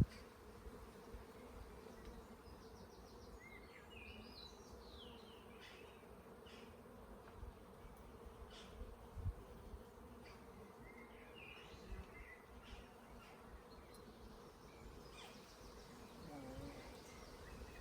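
Honeybees humming steadily around an opened hive during a frame inspection. A sharp knock comes right at the start, with a few faint high chirps and light clicks scattered through.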